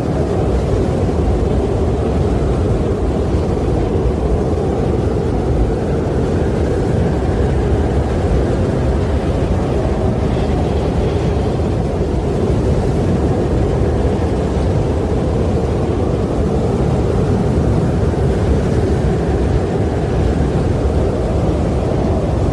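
Wind blowing steadily, a low rushing noise that swells and eases slightly.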